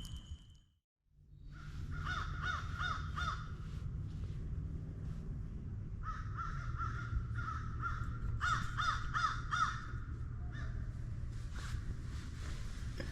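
Bird calls: short, harsh calls repeated in quick runs of about three a second, over a steady low hum, following a brief silence about a second in.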